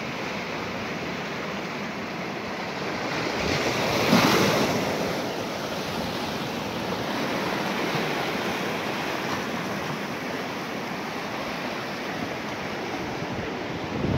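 Small waves washing over reef rocks and against a coral-stone seawall, a steady surf that swells to a louder surge about four seconds in.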